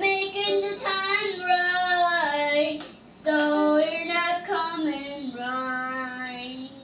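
A young boy singing long, drawn-out notes without clear words in two phrases. The second phrase slides down and ends on a long, low held note.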